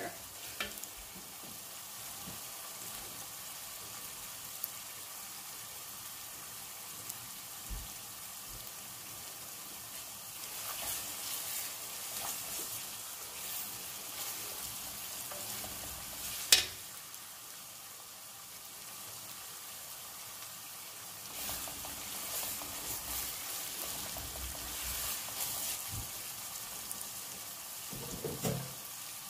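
A spiced sauce base frying in a large metal pot with a steady sizzle, while a wooden spoon stirs and scrapes the pot in spells. One sharp knock comes about halfway through.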